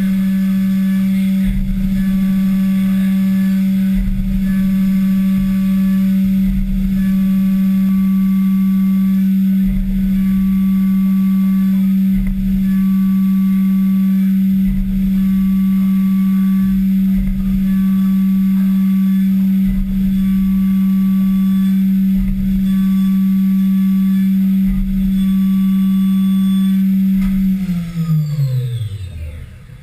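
Haas VF-3 CNC vertical mill's spindle running at a steady high speed while milling aluminium, with a pattern that repeats about every two and a half seconds as the tool makes its passes. Near the end the spindle spins down, its pitch falling until it stops.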